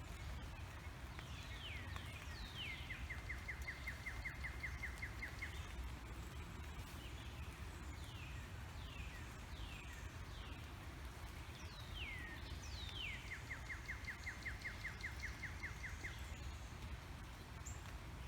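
A songbird sings twice, each song a run of slurred notes falling in pitch that leads into a fast, even trill lasting a few seconds, over a steady low background rumble.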